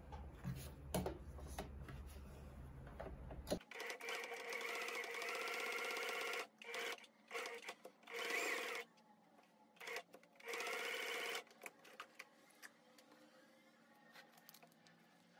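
Electric sewing machine stitching through a small layered fabric scrap: after a few handling clicks, it runs steadily for about two and a half seconds, stops and starts in short bursts, then runs again for about a second before stopping.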